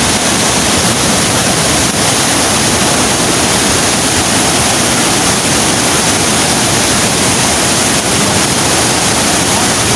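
Steady, loud rush of a high waterfall's water pouring over the edge, an even unbroken roar of falling water.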